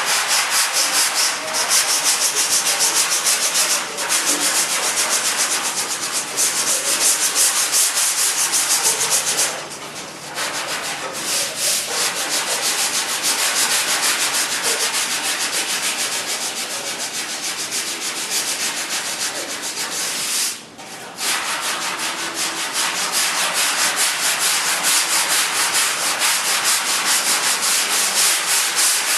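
Sandpaper being worked over a surface: a steady, scratchy rubbing that stops briefly a few times, about 4, 10 and 21 seconds in.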